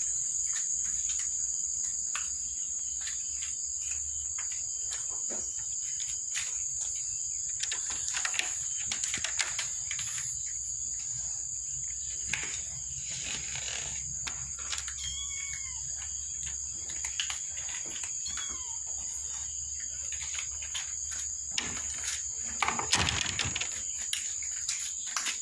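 Steady high chirring of insects, with scattered light clicks and taps, and a few short high calls about two-thirds of the way through.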